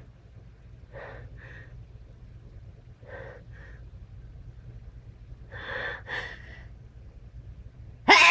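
A person's catching, gasping in-breaths building up to a sneeze: three pairs of short breaths, the last pair louder, then the loud sneeze itself right at the end.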